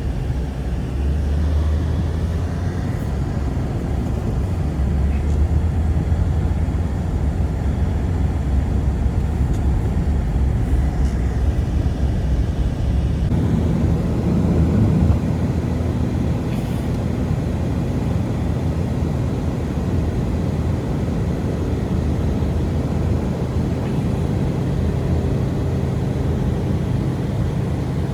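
Strong blizzard wind blowing steadily as a loud low rumble, changing in character about halfway through.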